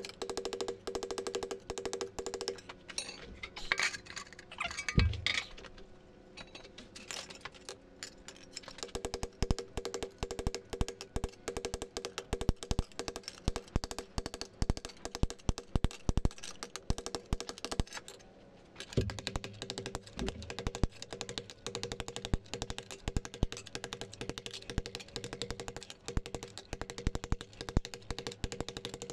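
Rapid light hammer taps on the inner lip of a thin steel ring held on an anvil, stretching the edge to flare it into a flange. A steady hum runs beneath, with a heavier thud about five seconds in.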